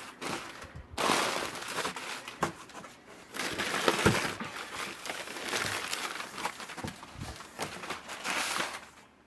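Plastic packaging wrap crinkling and rustling as it is handled and pulled at, with scattered sharp crackles, dying away near the end.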